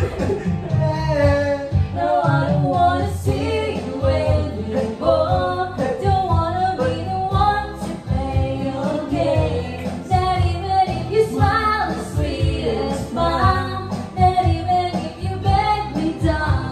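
Background music: a song with a woman singing a melody over a steady low beat.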